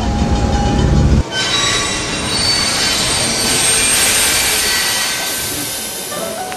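Background music with a heavy bass for about the first second, cut off suddenly. Then a model diesel locomotive running on its track: a rushing hiss of wheels on the rails with thin, steady squealing tones, slowly growing fainter.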